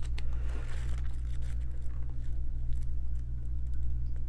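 Bible pages being leafed through by hand, with faint soft flicks of paper, over a steady low hum.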